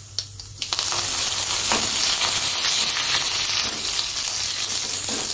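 Fresh curry leaves dropped into hot oil with spluttered mustard and cumin seeds in a kadai: a loud sizzle with fine crackling breaks out about a second in and keeps going while a ladle stirs them.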